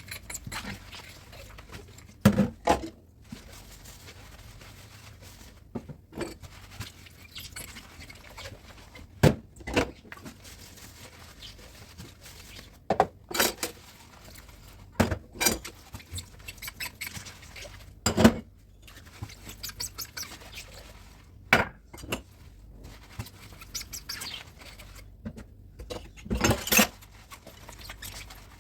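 Dishes and cutlery clinking and knocking against each other as they are washed by hand in a sink: scattered sharp clinks at irregular intervals.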